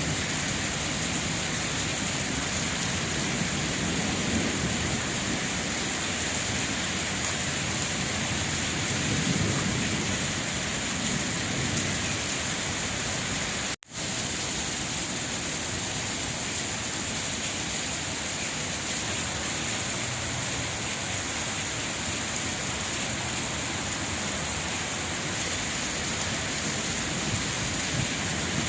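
Steady heavy rain, a dense even hiss of falling water, with low rumbles swelling up and dying away several times. The sound cuts out for an instant about halfway through.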